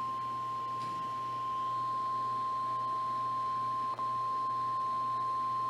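Warning alert tone of NOAA Weather Radio: a single steady high-pitched beep, broken briefly about four seconds in. It signals that a severe thunderstorm warning is about to be read.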